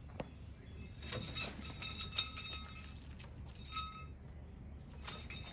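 Faint outdoor ambience: a steady high insect trill with scattered light clinks and ticks.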